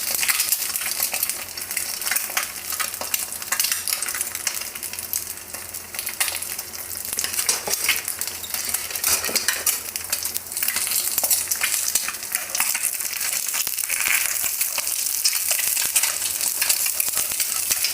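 Egg frying in hot oil in a pan: a steady sizzle full of popping, spattering crackles.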